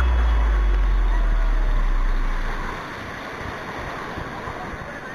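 A deep falling bass note of electronic music rings on and dies away about two and a half seconds in. Under and after it comes the sound of sea waves breaking and churning, with wind on the microphone.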